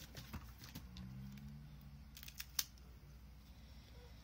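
Faint clicks and taps of small objects being handled, with a sharper click about two and a half seconds in.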